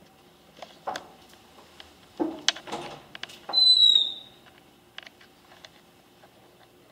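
Interior doors being handled: scattered light clicks and knocks of latches and door panels, then one high, clear squeak lasting under a second, about halfway through, sliding slightly down in pitch.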